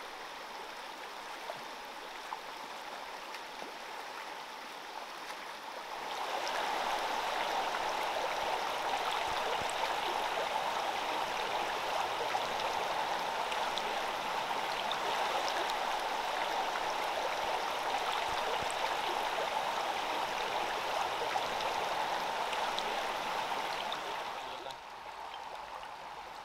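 Shallow mountain creek running over rocks, a steady rush of water that grows louder about six seconds in and falls back near the end.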